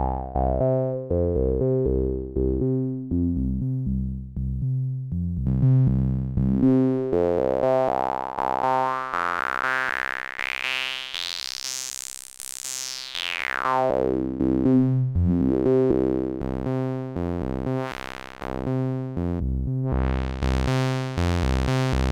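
Fred's Lab Zekit synthesizer playing a repeating sequence of short notes while its filter cutoff is swept. The resonant peak sinks early on, climbs very high about halfway through, then falls back to a darker tone.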